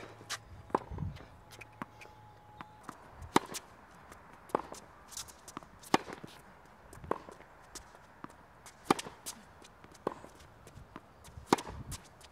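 Tennis ball rally on an outdoor hard court: sharp pops of the ball off the racket strings and court, about one every second or so, with low thuds of footsteps between them.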